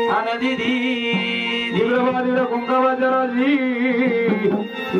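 Gondhal devotional music: a held melody with vibrato over a steady drone, with light drum strokes, in a pause between sung invocations.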